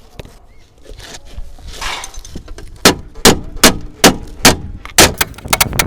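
Hammer blows on thin galvanized sheet steel: six sharp, spaced strikes that ring, starting about three seconds in, then a fast run of lighter taps near the end, after a couple of seconds of scraping and handling noise.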